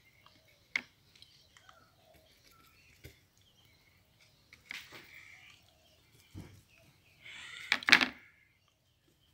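Small handling noises at a workbench: a few scattered sharp clicks and a light knock, then a louder rustling clatter near the end.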